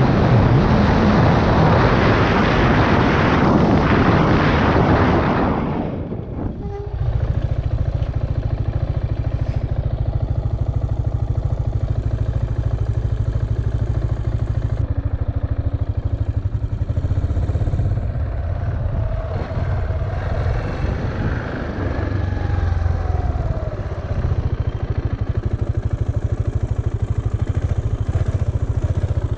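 Wind rushing over a helmet-mounted microphone along with a KTM Duke motorcycle's engine at about 40 mph, cutting off sharply about six seconds in as the bike brakes hard to a stop. After that the engine runs at low revs with a steady low rumble as the bike rolls slowly.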